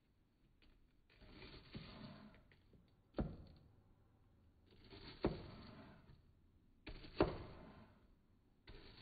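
A series of four sharp thunks about two seconds apart, each with a brief rushing or scraping sound around it.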